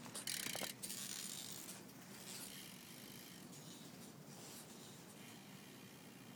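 Rustling, scraping and knocking as a recording phone is handled and set down on the pavement, loudest in the first second. The rest is a faint, steady background hiss.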